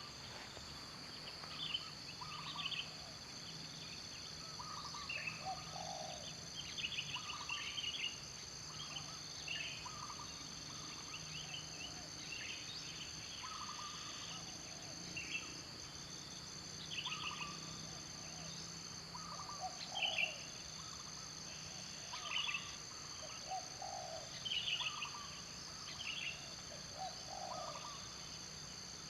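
Birds giving short, repeated chirping calls every second or so, over a steady high-pitched insect drone.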